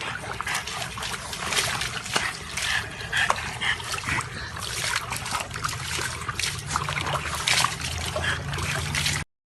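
Water splashing and trickling, with many irregular small splats. It cuts off suddenly near the end.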